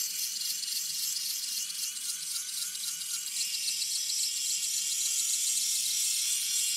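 Background music with a steady, high, hissy shimmer and no low notes.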